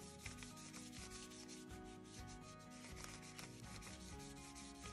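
Faint, repeated scratchy rubbing of a paintbrush worked across white paint on decorative paper, brushing the paint off to a distressed wood finish.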